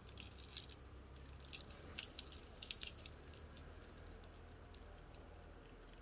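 Faint, scattered crackling of dry leaves as a yellow anaconda crawls over them. The crackles are loudest about two to three seconds in and then die away, over a low steady rumble.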